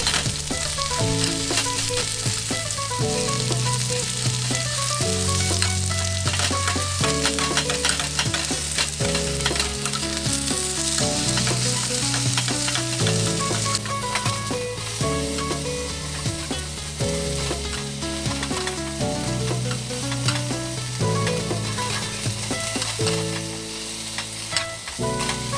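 Food sizzling as it fries in a pan, a steady crackling hiss, with background music of chords and a bassline changing about once a second.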